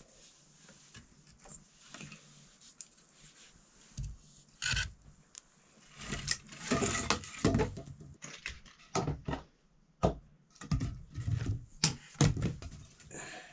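Irregular knocks and scrapes of objects being handled, a dozen or so sharp knocks with a denser clatter about six to eight seconds in.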